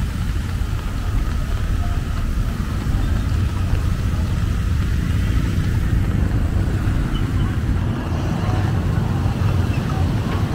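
Street traffic on a wet road: cars, tuk-tuks and motorbikes passing, with their tyres on the wet road over a steady low rumble.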